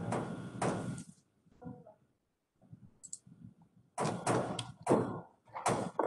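Several short bursts of rustling and knocking close to the microphone, with silent gaps between them: handling noise as someone moves about at the computer.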